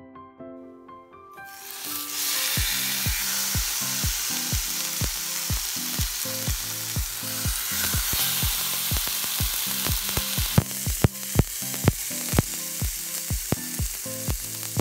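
Marinated chicken thighs laid onto a hot cast-iron sizzler pan, starting a loud, steady sizzle about a second and a half in. From about ten seconds in, sharp irregular crackles of spitting fat and marinade break through the sizzle.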